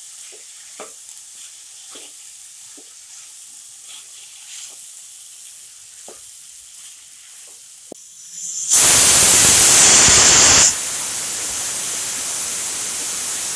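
Vegetables frying in a pan with a faint sizzle and the light scrape and tap of a spatula as they are stirred. About nine seconds in, a pressure cooker's weight valve lets out a loud, steady hiss of venting steam that eases a little after two seconds and keeps going: the whistle of dal cooked under pressure.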